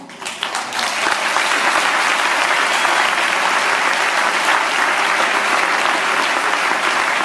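Large audience applauding as the tango music ends: scattered claps that thicken into dense, steady applause within about the first second.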